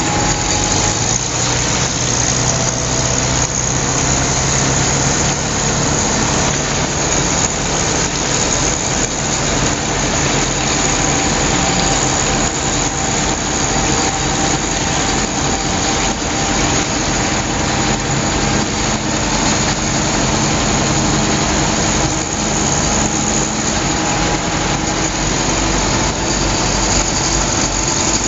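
Air-cooled flat-four engine of a 1943 Volkswagen Schwimmwagen Typ 166 running steadily while the amphibian is under way on the water, with a steady rushing noise over it.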